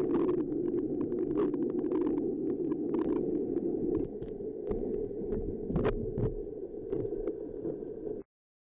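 Muffled underwater rumble of a Pentair Rebel suction-side pool cleaner running on the pool floor, with irregular clicks and knocks. It drops slightly in level about four seconds in and cuts off abruptly near the end.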